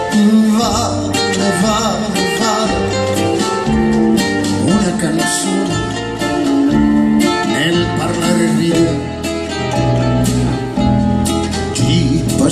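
Live band playing a song, a guitar to the fore over bass and drums, with a man singing.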